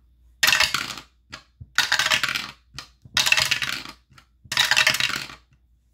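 Dice rolled four times, each roll a short clatter lasting under a second, about one and a quarter seconds apart.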